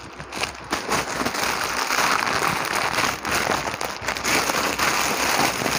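Plastic mailer bag being handled and opened by hand, crinkling and rustling in a dense, unbroken crackle.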